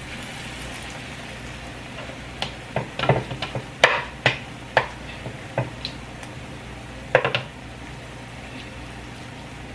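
Salmon croquette patties frying in a pan of hot oil, a steady sizzle that brightens briefly as a patty is laid in at the start. In the middle comes a run of sharp clicks and clinks from a spoon working in the mixing bowl, with a short cluster of them again later.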